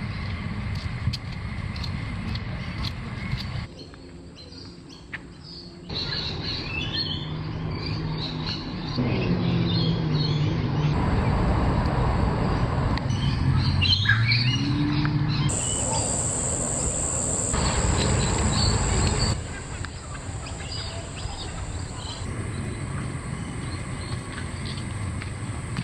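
Birds chirping and calling over outdoor background noise that changes abruptly several times.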